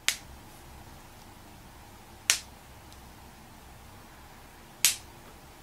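A person's joint cracking with single sharp pops, three times about two and a half seconds apart.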